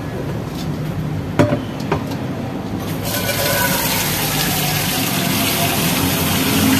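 Red mung beans boiling in an aluminium pot on a gas burner, bubbling, with a few light ticks in the first two seconds. About three seconds in, a loud steady hiss sets in abruptly and stays.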